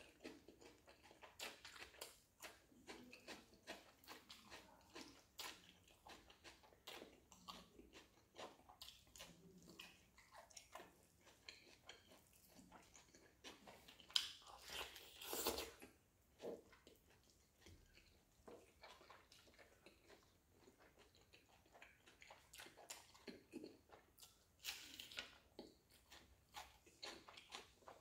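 Close-up chewing and biting of roasted chicken: many short, quiet mouth clicks throughout. About 14 seconds in comes a louder tearing as the chicken is pulled apart by hand, and a similar louder stretch a few seconds before the end.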